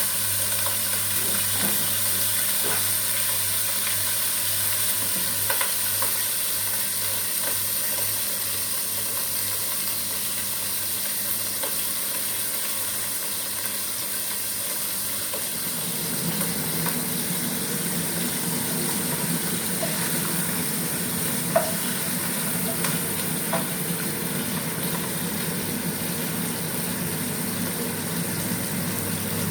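Vinegar-and-garlic-marinated milkfish (bangus) frying in hot oil in a pan: a steady sizzle with a few sharp pops. About halfway through, a lower steady hum joins in.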